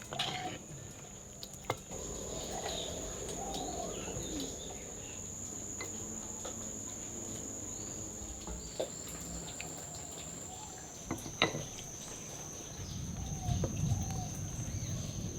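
Steady high-pitched insect drone that drops slightly in pitch about two-thirds of the way through, with faint chirps and a few sharp clicks.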